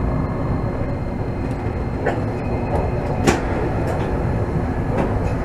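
Toden Arakawa Line streetcar running along its track, heard from inside: a steady low rumble broken by a few sharp wheel clicks, the loudest about three seconds in.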